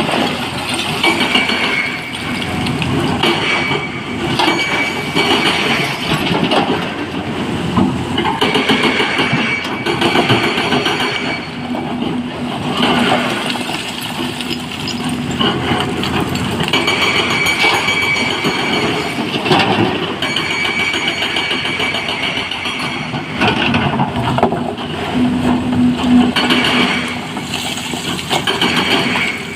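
Hydraulic excavator working under load: a diesel engine rumble with a hydraulic whine that rises and fades every few seconds as it digs and swings, and scattered knocks and clatter of rock.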